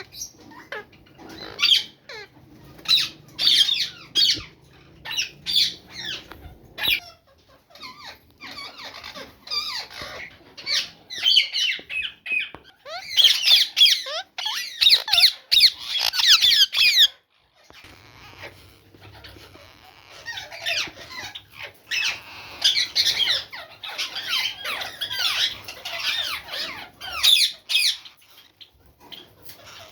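Bird chicks squeaking and chirping in rapid, high-pitched bursts, loudest around the middle and again through the second half.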